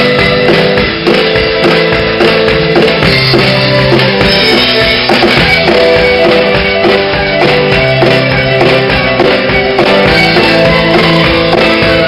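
Live band instrumental: a fiddle bowed as the lead over a steady drum kit beat, with keyboard and guitar backing.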